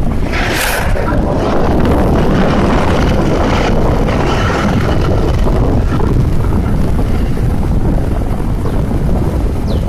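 Loud, steady rush of a waterfall, with wind buffeting the microphone.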